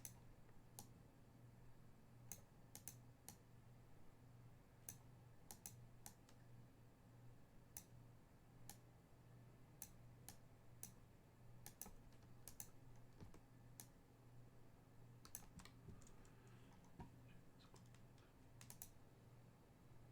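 Faint, irregular sharp clicks and taps, some in quick pairs, over a low steady hum.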